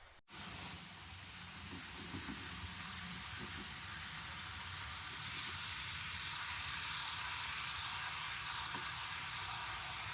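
A steady hiss with a low rumble underneath, beginning after a brief dropout near the start.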